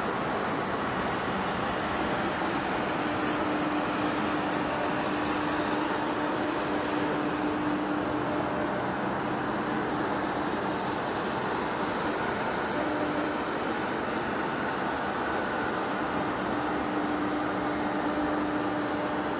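Heavy-duty face lathe and its electric drive motors running: a steady machine noise with a hum that fades in and out.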